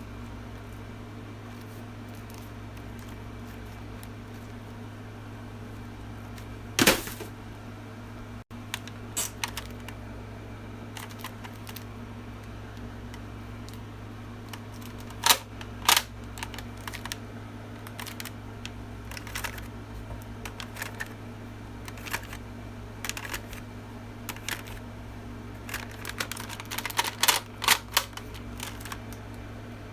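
Sharp plastic clicks and clacks from toy guns being handled and reloaded, scattered through, with a loud snap about seven seconds in, two more in the middle and a quick run of clicks near the end. A steady low hum runs underneath.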